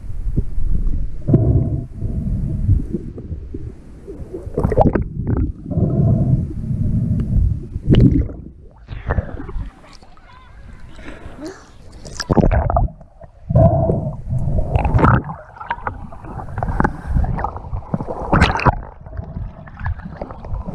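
Lake water sloshing and gurgling against a GoPro camera as a snorkeler swims, the camera passing between underwater and the surface. The noise comes in irregular surges with short quieter gaps.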